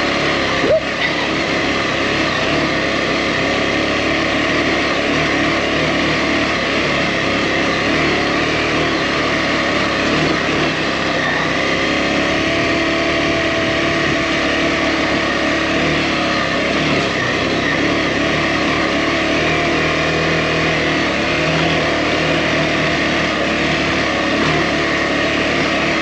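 Adventure motorcycle engine running steadily as the bike rides a rough, lumpy dirt trail, with one short knock about a second in.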